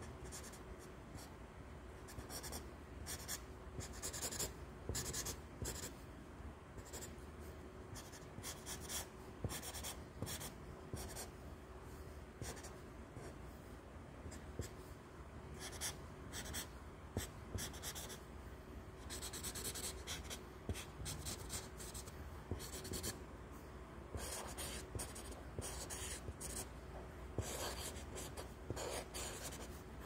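Sharpie marker drawing on lined notebook paper: the felt tip scratches across the page in short, irregular strokes, some quick and some drawn out over a second or more.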